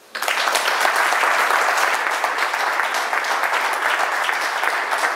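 An audience applauding, breaking out suddenly just after the start and going on steadily.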